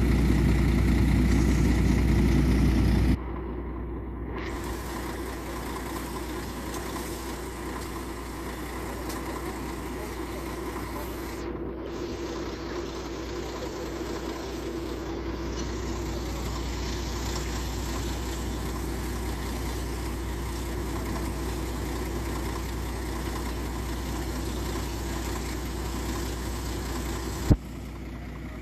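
Crane truck's engine idling steadily, loud at first, then dropping suddenly about three seconds in to a quieter steady running. A single sharp click near the end.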